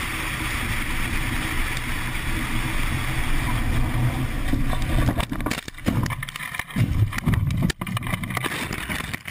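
Steady wind and road noise inside a fast-moving car. About five seconds in, it gives way to a run of irregular thumps, bangs and scrapes as the car leaves the road and crashes, apparently rolling over.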